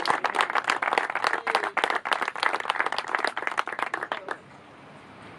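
A small group of people clapping by hand, the applause dying away about four seconds in.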